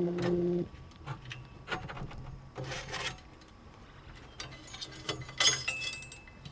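Light clicks and rubbing scrapes of small bike parts being handled and worked loose while a BMX brake rotor (detangler) is disconnected. A brief low hum sounds at the very start.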